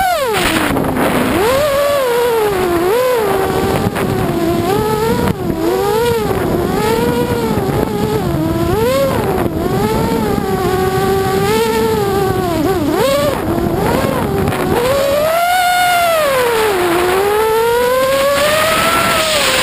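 ImmersionRC Vortex FPV racing quadcopter's motors and propellers whining, heard from the onboard camera, the pitch constantly rising and falling as the throttle is worked through turns and climbs.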